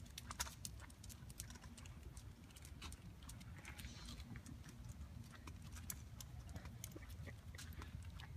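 Faint, irregular light clicking of footsteps on a concrete sidewalk, including the claws of a walking dog, over a steady low rumble.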